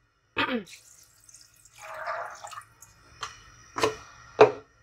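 Water poured into a metal pot of soaked chickpeas, splashing and dripping, with a few separate splashes near the end.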